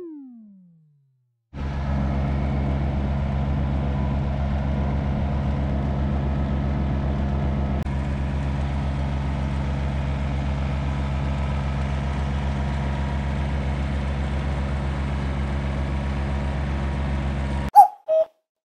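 Yanmar 30-horsepower tractor's diesel engine running steadily as the tractor drives along a farm road, heard from the driver's seat. It starts about a second and a half in and cuts off suddenly near the end, followed by a short sharp sound.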